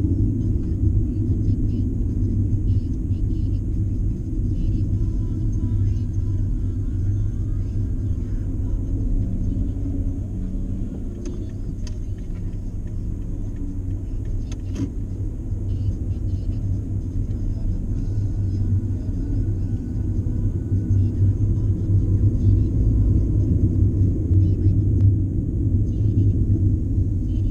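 Car interior road noise while driving on a highway: a steady low rumble of tyres and engine heard from inside the cabin, getting slightly louder in the last third.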